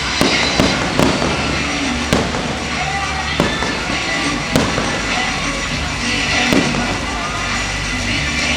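Fireworks bursting overhead, a string of sharp bangs (the densest cluster in the first second or so), over music playing throughout.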